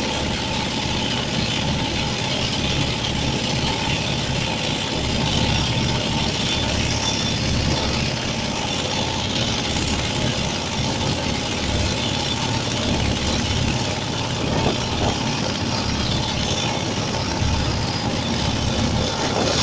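Boat engine running steadily, a continuous low chugging drone with a hiss above it.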